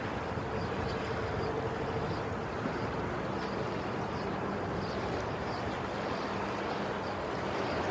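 Ocean waves washing steadily, with a faint steady hum underneath.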